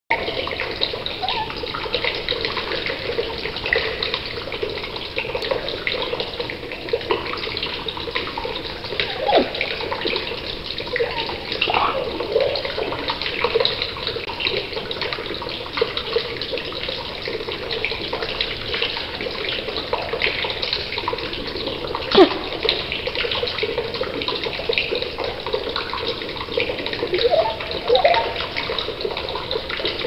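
English budgie warbling: an unbroken, scratchy chatter full of tiny clicks, with a few squeaky slides in pitch scattered through it.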